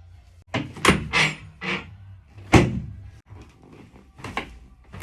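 Chiropractic spinal adjustment: a series of quick thrusts on the patient's back, each a sharp thud or crack from the body and treatment table. Four come in quick succession, then a loud one about two and a half seconds in and another near the end.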